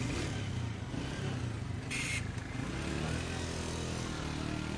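Motorcycle engine running close by, its pitch climbing as it revs up in the second half. A short burst of noise comes about two seconds in.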